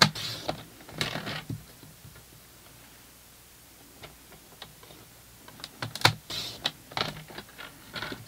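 Sliding paper trimmer cutting cardstock: a sharp click and two short swishes as the blade carriage runs along its rail in the first second and a half. After a quiet stretch, a run of clicks and rustles as the cut cardstock strips are handled and set against the trimmer.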